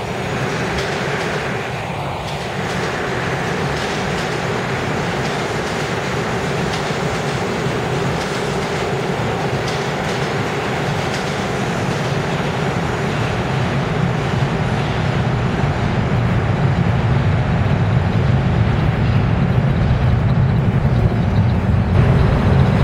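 New York City subway train approaching through the tunnel: a continuous rumble of wheels on rail that grows louder and deeper over the last several seconds.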